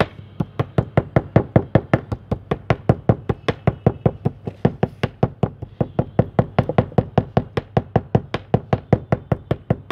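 Knife chopping moist flavoured shisha tobacco on a cutting board: rapid, even strokes at about five a second.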